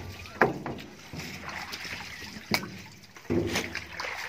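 Water splashing and sloshing as freshly cut banana hands are washed in a water tank, with a few sharp knocks from bunches being handled.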